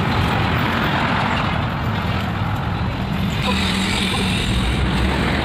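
Road traffic passing: a steady wash of vehicle engine and tyre noise, with an engine hum becoming more prominent about three and a half seconds in.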